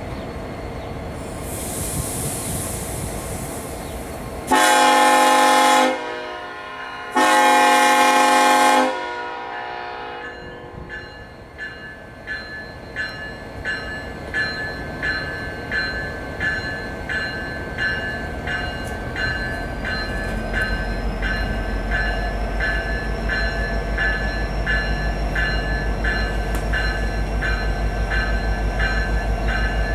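Union Pacific SD70ACe diesel locomotive starting a train: a brief hiss, then two long blasts on its horn, the signal for releasing brakes and proceeding. Its bell then rings steadily about once a second, and the deep rumble of its EMD 710 diesel builds along with a rising turbocharger whine as it throttles up to pull away.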